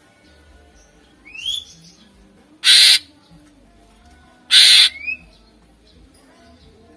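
Cucak ijo (greater green leafbird) singing: a short rising whistle, then two loud harsh, rasping notes about two seconds apart, each under half a second, the second followed by another brief rising whistle.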